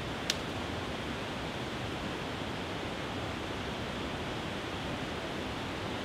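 Small waterfall pouring over a low rock ledge into a pool: a steady, even rush of water. One short, sharp click a third of a second in.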